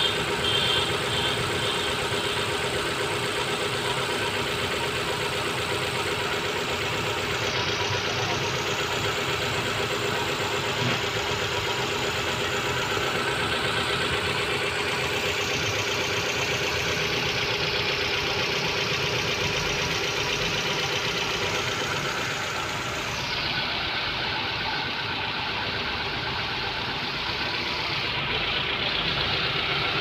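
Hyundai Santro Xing petrol engine, fitted with an aftermarket CNG sequential injection kit, idling steadily, heard close under the open bonnet.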